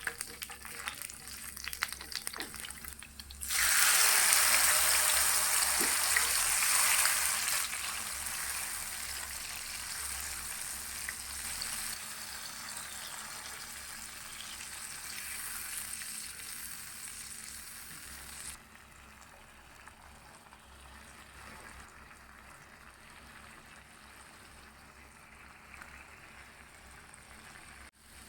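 A few light clicks from utensils, then food goes into hot oil about three and a half seconds in and starts sizzling loudly. The frying sizzle fades gradually and drops off sharply about two-thirds of the way through, going on quietly to the end.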